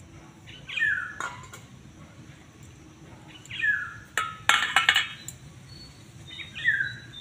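A bird calls three times, a short call falling in pitch, about every three seconds. Around the middle come a few sharp clinks, louder than the calls, as drinking glasses of iced sherbet are handled.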